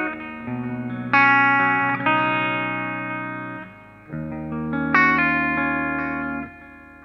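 Guitar played through a Mooer GE 150 Pro multi-effects processor: chords struck a few times, each left to ring out and fade.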